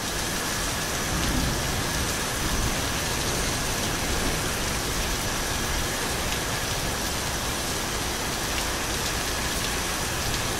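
Steady, even hiss like rain, with two faint high steady tones in it.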